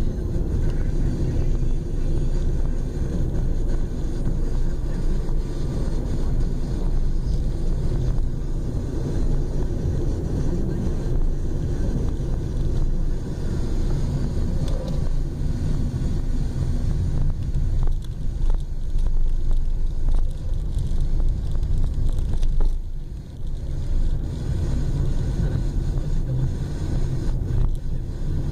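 Car engine and tyre road noise, a steady low rumble heard from inside the cabin while driving, easing off briefly about two-thirds of the way through.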